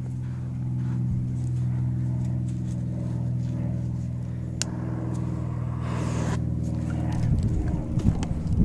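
A steady low engine hum runs throughout. About halfway there is a sharp click and, a second later, a short hiss, then irregular footsteps on sand near the end.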